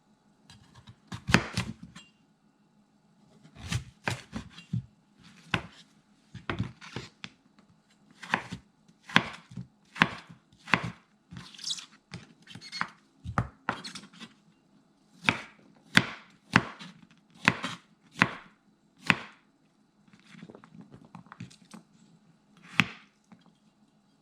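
Kitchen knife cutting zucchini into dice on a cutting board: a string of separate knocks, about one or two a second, with short pauses between runs of cuts.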